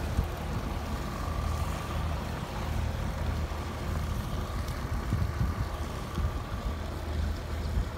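Inboard diesel engine of a small wooden fishing boat chugging steadily as the boat motors past at low speed, with a faint steady whine over it from about a second in until near the end.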